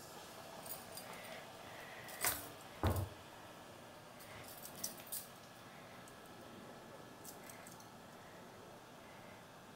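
Kitchen utensils handled at the counter: two sharp knocks a little over two seconds in, about half a second apart, the second with a dull thud, then a few faint clicks.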